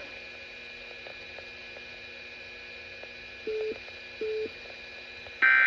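Weather radio receiver audio with a steady electronic hum and two short low beeps about three and a half seconds in, then, near the end, a short loud screech of an EAS end-of-message data burst, the digital tones that close the weekly test.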